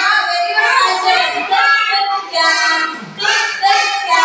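Sing-song chanting of English letter sounds, by a woman's voice and young children's voices.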